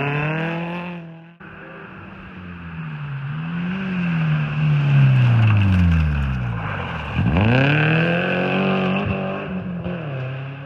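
Rally car engine revving hard, its pitch rising and dropping with throttle and gear changes. The sound cuts off abruptly about a second and a half in and resumes. The revs fall away through the middle, then climb steeply about seven seconds in before fading near the end.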